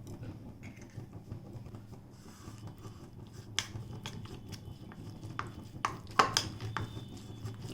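Kitchen handling noise: a few sharp light clicks and taps of utensils and dishes, mostly in the second half, over a low steady hum.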